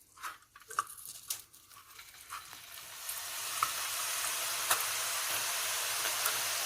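Besan sev dough hitting hot frying oil: after a few light clicks and taps, the oil starts to sizzle about three seconds in and swells to a steady frying hiss.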